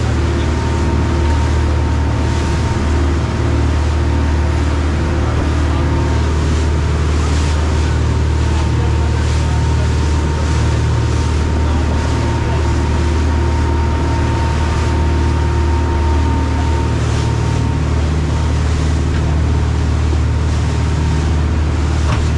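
A dive boat's engines running steadily at cruising speed, a deep even drone with a thin steady whine above it, mixed with the rush of the churning wake behind the stern.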